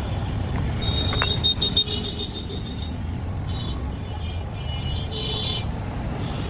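Steady low rumble of road traffic, with short high-pitched tones that come and go a few times.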